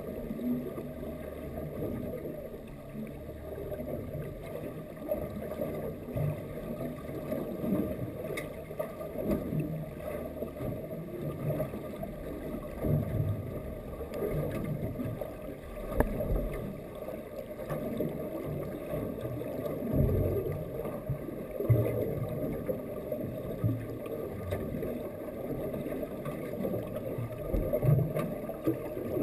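Muffled underwater sound heard through a camera's waterproof housing: an uneven low rumble of moving water, with a few faint clicks.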